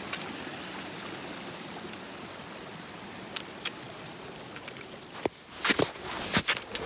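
Shallow mountain stream running over rocks as hiking boots step through it, with a couple of faint clicks. About five seconds in it gives way to loud, irregular crunching footsteps on old snow.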